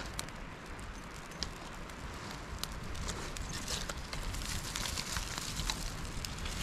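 Wood campfire crackling, with scattered sharp pops over a steady hiss and a low rumble of wind.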